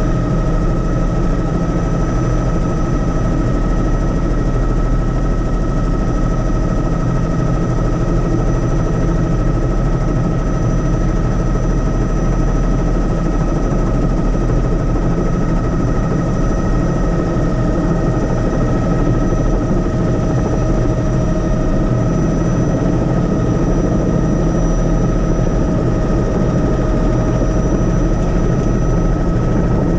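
Helicopter running steadily, with a dense low rotor and engine rumble and a steady high-pitched whine over it.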